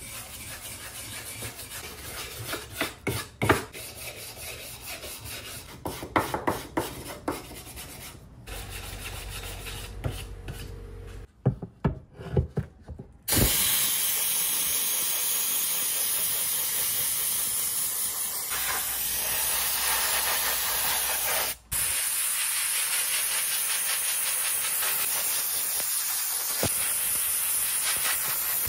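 Wire brush scraping over old wood in uneven strokes with a few knocks, then, from about halfway, a spray gun hissing steadily as it sprays the carved wood, cutting out briefly once and starting again.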